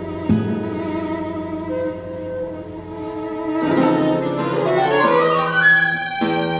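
Live chamber trio of flute, violin and classical guitar playing contemporary classical music: sustained violin and flute notes over the guitar, with a sharp plucked attack about a third of a second in. A rising run of notes a few seconds in, and another plucked attack near the end.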